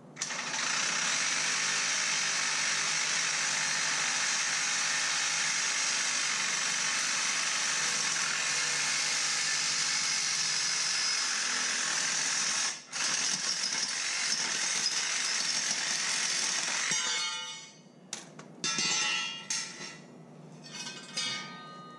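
Power saw cutting through steel unistrut channel with a steady, harsh cutting noise, broken once briefly before running on. It stops near the end, followed by a few clanks and rattles of metal pieces.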